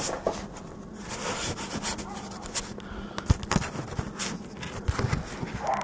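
Scattered knocks and scrapes with rustling handling noise, over a steady low hum.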